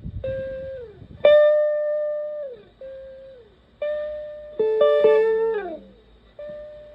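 Electric guitar (Stratocaster) played through a PT2399-based echo pedal into a Fender Twin Reverb-style amp: single picked notes, about six of them, each held and then sliding down in pitch as it fades. The loudest note comes about a second in.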